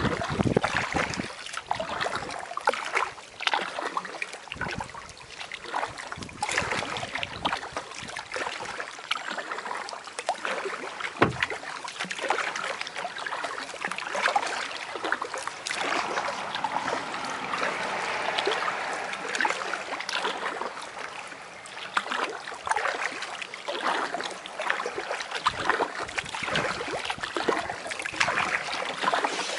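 Kayak being paddled: paddle blades dipping and splashing, with water trickling and dripping in a busy, irregular patter of small splashes.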